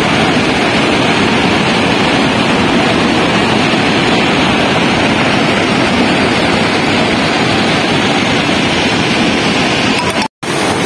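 Muddy flash-flood torrent rushing down a river channel: a loud, steady rushing noise that cuts out for an instant near the end.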